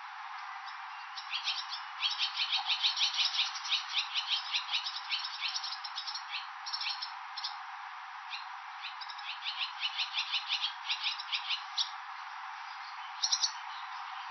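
Barn swallow twittering: rapid runs of short, high chirps in two long bouts, then a brief burst near the end, over a steady background hiss.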